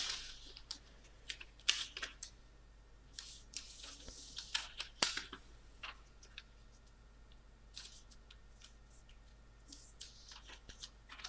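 A sheet of origami paper rustling and crackling as it is folded and creased by hand. The sounds come in short scattered rustles and sharp crackles, with quiet stretches between.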